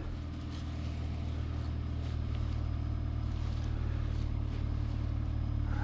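A vehicle engine idling steadily as a low, even hum, with a few faint rustles early on as the dead ducks are handled.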